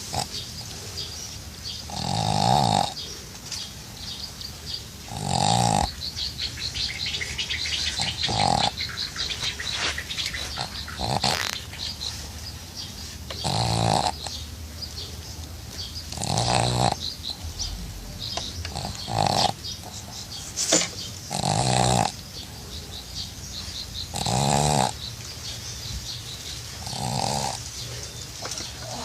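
A sleeping dog snoring, each snore a short rasping breath of about half a second, repeating about every three seconds.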